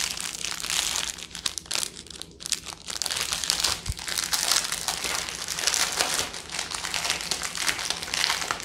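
Small plastic bags of diamond painting drills crinkling and rustling as they are handled.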